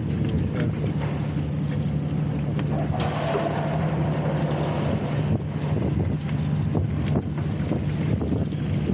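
A stationary engine running steadily with an even low hum, with scattered sharp clicks of stones being handled. A rougher, louder stretch of noise comes about three seconds in.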